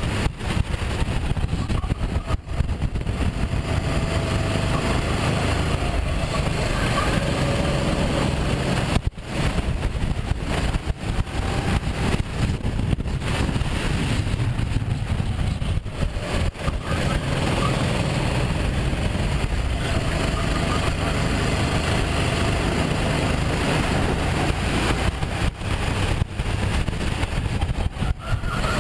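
Onboard sound of a Sodi RT8 rental go-kart's engine running hard at racing speed, a loud steady rumble with a wavering engine whine above it. The level dips briefly twice, about 2 and 9 seconds in.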